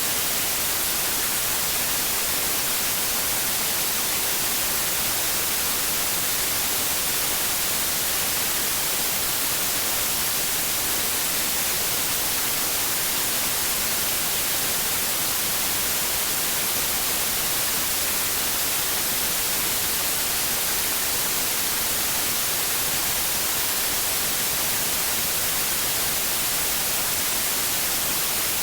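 Steady white noise: an even, unchanging hiss, strongest in the high frequencies, with no breaks or changes.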